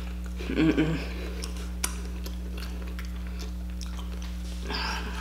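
Close-up chewing and wet mouth sounds of someone eating sauce-coated spicy chicken wings, with scattered clicks and crackles. There is a short vocal sound about half a second in and another near the end, over a steady low hum.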